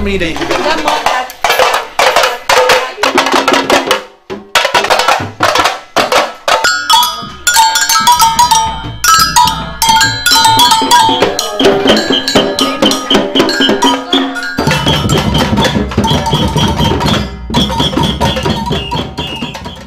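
Group percussion of samba-style drums and hand-held metal bells struck with sticks, playing a rhythm together. Clear ringing bell tones stand out through the middle, and deep drums come in strongly about three-quarters of the way through.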